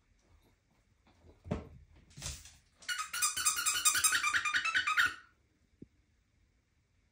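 Small dog's paws rapidly scratching and scraping at a bath mat for about two seconds, digging to cover up her tennis ball. A soft thump and a short rustle come before it.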